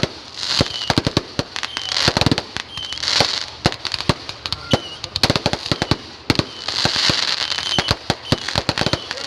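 Fireworks going off: a dense, irregular run of sharp pops and crackles, with hissing swells that come and go every second or so.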